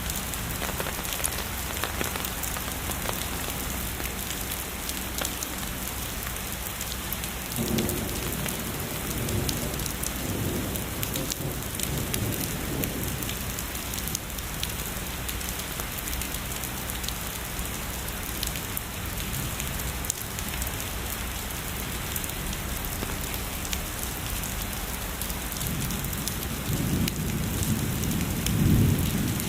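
Steady heavy rain with distant thunder rumbling twice: a rolling rumble lasting several seconds about a quarter of the way in, and a louder one building near the end.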